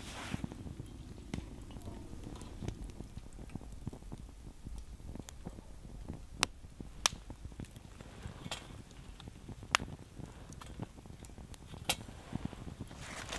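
Wood fire burning with a low, steady rumble and scattered sharp pops a few seconds apart, the crackle of wet wood.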